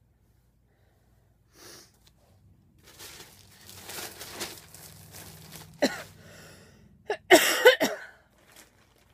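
Clothing rustling softly as garments are handled and packed away, followed near the end by a short, loud vocal burst.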